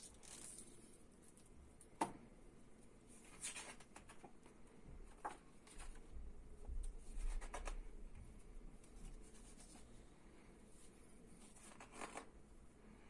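A hardcover picture book being opened and its stiff pages turned by hand: quiet paper rustling with a few sharp taps, the clearest about two seconds in, and a low thud of handling in the middle.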